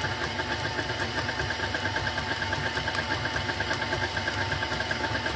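KitchenAid Artisan stand mixer running steadily, its flat beater turning through thick cream-cheese batter in a stainless steel bowl. The motor gives a steady hum with a fast, even pulse.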